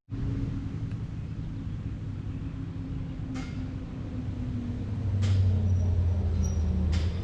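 A steady low rumble with a hum, growing louder about five seconds in, with a few brief soft hisses about every second and a half to two seconds.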